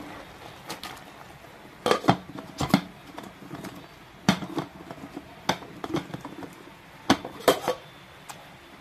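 Metal clinks and knocks on a stainless steel cooking pot full of vegetables as it is handled: a string of sharp, irregular strikes, loudest about two seconds in and again about seven seconds in.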